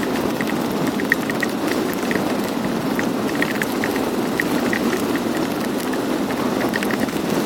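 Motorcycle riding through heavy rain: a steady rush of wind and road noise, with scattered small ticks of raindrops striking close to the microphone.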